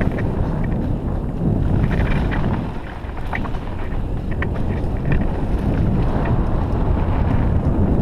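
Wind buffeting the microphone of a camera on a downhill mountain bike rolling fast down a dirt trail, with scattered small rattles and clicks from the bike over the bumps. The noise eases briefly about three seconds in.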